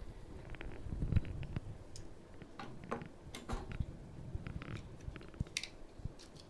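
Irregular light clicks, ticks and scratches of Super 8 film being pressed and worked onto the nail pins of a wooden splicing jig, with a soft thump about a second in.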